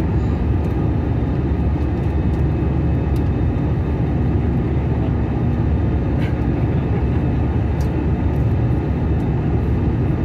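Steady cabin noise of an airliner in flight: an even, unbroken rush of engine and airflow noise, heaviest in the low range.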